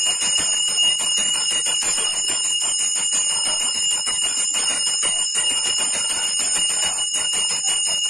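A Hindu puja hand bell (ghanti) being rung rapidly and continuously, its high ringing tones sustained over fast repeated clanks, as it is during an aarti.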